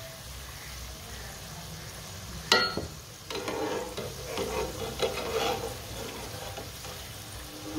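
Shredded-potato snacks sizzling as they deep-fry in hot ghee in an aluminium pan. About two and a half seconds in, a slotted spatula strikes the pan once with a short metallic clank and ring, then stirs and turns the pieces through the bubbling oil.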